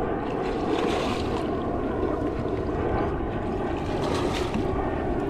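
Steady rush of surf and wind noise on the microphone at the shore.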